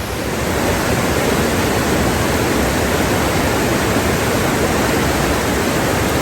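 Rushing creek water, a steady loud rush that swells a little in the first second and then holds.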